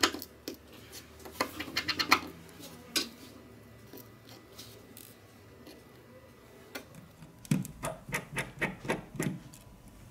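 Small metal tools clicking and scraping on a smartphone's screws and frame: a precision screwdriver and tweezers taking out motherboard screws. There is a quick run of clicks about a second and a half in, a single click near three seconds, and a longer run of clicks late on.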